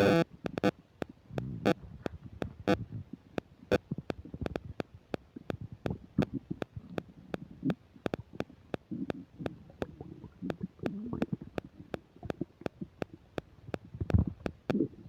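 Upset stomach gurgling and rumbling during digestion, in irregular low bubbling spells. A run of sharp clicks about three a second runs through it, with a loud burst at the very start and a deep thump near the end.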